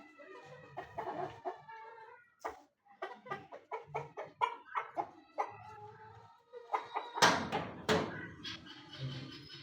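Chickens clucking: a run of short, pitched clucks, with a louder, harsh burst about seven seconds in.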